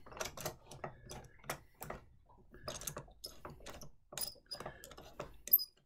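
Scattered small clicks and knocks, with a few short squeaks, from the steel spindles and handles of wooden handscrew clamps being turned and their jaws closed on a workpiece.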